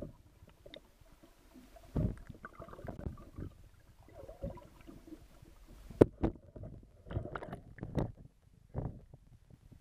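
Muffled thumps, knocks and water sloshing heard through a submerged camera, coming irregularly, with the sharpest knock about six seconds in.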